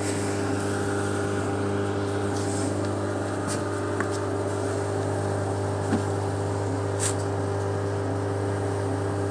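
Ariston washing machine in its spin cycle: a steady hum from the drain pump and motor as the drum starts turning for the spin, with a few faint ticks. The drum runs without grinding after its drum bearings were replaced.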